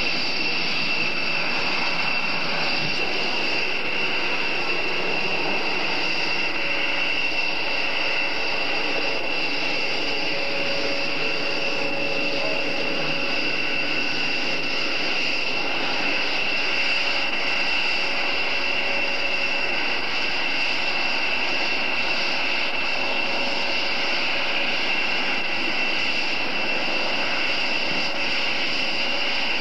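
A B-1B Lancer's four General Electric F101 turbofans running at low taxi power as the bomber rolls along the taxiway: a steady high-pitched turbine whine over a constant rush of jet noise.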